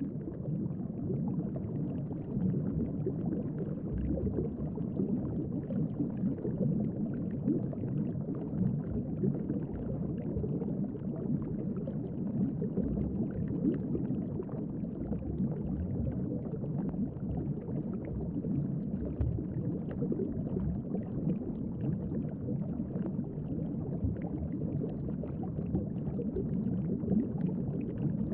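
Underwater ambience: a steady, low, dull rumble of moving water with no rhythm or tune.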